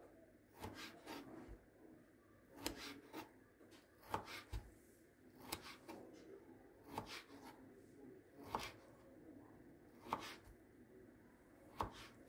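Light clicks and knocks with some rubbing, often in close pairs, recurring about every one and a half seconds: small objects being handled.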